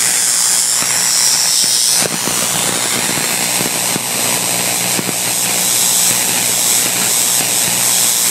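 Homemade corona motor running on high voltage: a loud, steady hiss of corona discharge with a low hum beneath it, and a few sharp cracks between about two and five seconds in.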